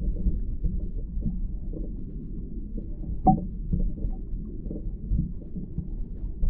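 Muffled underwater sound from a submerged action camera: low water sloshing around the housing with many small knocks, and one sharper click about halfway through.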